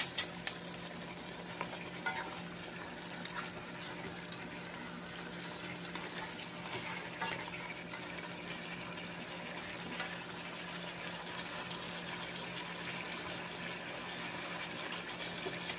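Thick beef stew bubbling and sizzling in a wide pan at a steady simmer, with a few light clicks of a ladle and spoon stirring in the sauce. A steady low hum runs underneath.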